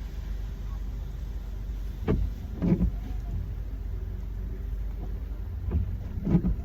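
Car idling, heard as a steady low rumble inside the cabin. Two pairs of short thumps, the two in each pair about half a second apart, come about two seconds in and again near the end.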